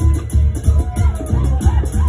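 Live band playing dance music: a loud, steady bass beat with a quick, high percussion rhythm on top.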